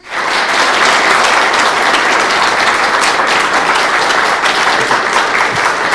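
An audience applauding: many people clapping together, starting abruptly and holding steady.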